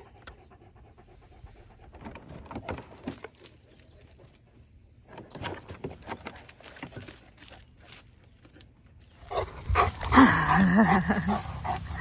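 Cane Corso panting heavily close to the microphone, a soft rhythmic huffing of breaths. About nine seconds in, a louder dog vocalization with a wavering pitch takes over as dogs play together.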